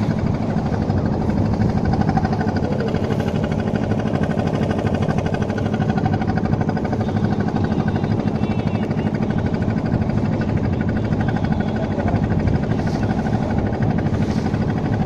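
A boat's engine running steadily, a constant low drone with a rapid even pulse that does not change.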